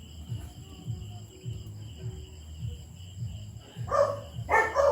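Crickets chirping in a steady, high, unbroken trill over a low pulse that repeats about three times a second. Near the end a louder, voice-like sound breaks in.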